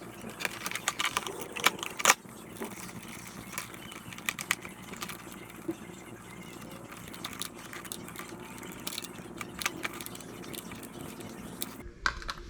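Irregular clicks and light rattles of hardware being handled, with a few sharper knocks about two seconds in.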